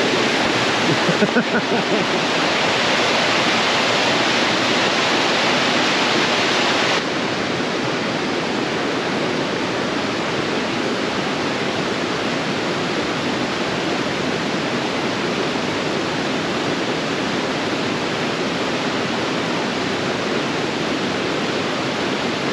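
Waterfall rushing steadily. About seven seconds in, the sound cuts to a slightly quieter, duller rush.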